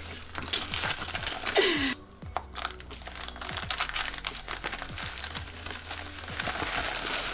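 Plastic USPS padded flat rate mailer crinkling and rustling as it is handled and pulled open, a dense run of crackles with a short lull about two seconds in.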